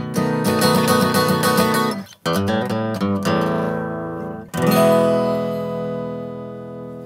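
Acoustic guitar strummed in a rhythmic chord pattern, then a last chord about four and a half seconds in, left to ring and slowly fade.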